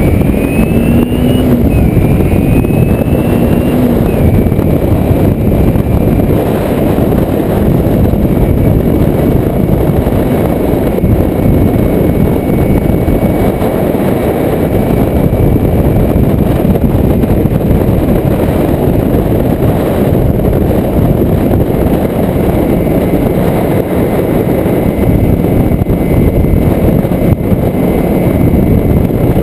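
Kawasaki Ninja motorcycle being ridden: the engine revs up twice through gear changes in the first few seconds, then holds a steady pitch under a loud, constant rush of wind on the microphone at road speed.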